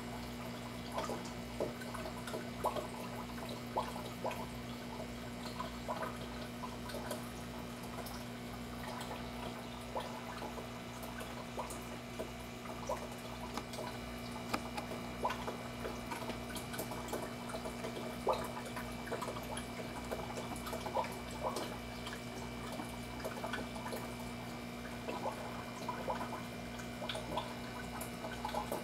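Aquarium water trickling and dripping with many small scattered plinks, over a steady low hum from the tank's pump or filter.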